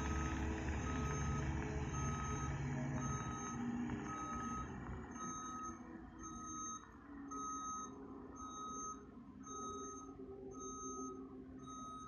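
CAT 279D3 compact track loader reversing, its backup alarm beeping steadily about once every 0.7 seconds over the diesel engine and tracks. The engine rumble is loud at first and fades after about four seconds as the machine backs away.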